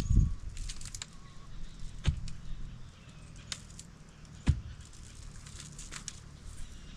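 A few dull knocks, one near the start, one about two seconds in and one about four and a half seconds in, among scattered light clicks and rustling.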